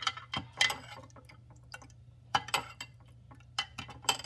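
Metal spoon clinking against the inside of a glass tumbler while stirring borax into warm water to dissolve it. There are a few sharp clinks in small clusters, with a pause of over a second in the middle.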